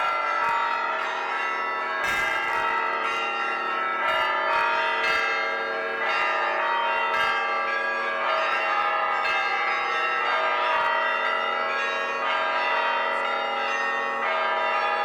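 Cathedral bells of an Orthodox belfry ringing a full peal: several bells struck in overlapping patterns, their tones ringing on continuously, with a heavier stroke every second or two.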